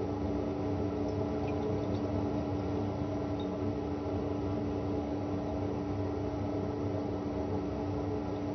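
Steady background hum with one strong held low tone and no distinct events: the room tone of the recording.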